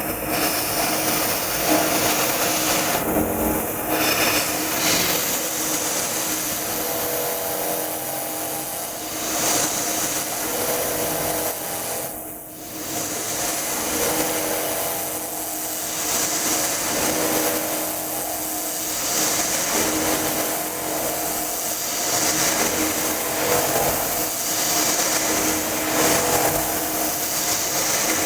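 CNC knee mill's end mill cutting steel on an adaptive iMachining toolpath: a steady cutting noise over the spindle's hum that swells and eases as the feed rate keeps changing, with a short dip about twelve seconds in.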